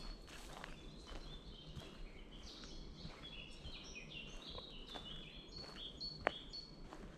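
Small birds singing, a quick run of short high whistled notes that is busiest in the middle, over the walker's footsteps on the forest path, with one sharp snap about six seconds in.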